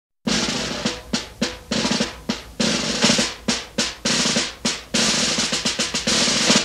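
Recorded music starts abruptly about a quarter second in with a snare-drum intro: sharp strokes and long rolls repeating in a rhythm, with a pitched band part underneath.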